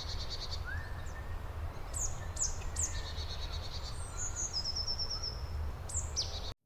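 Small birds calling: several quick high chirps that drop in pitch and a few short trills, over a steady low rumble. The sound cuts off just before the end.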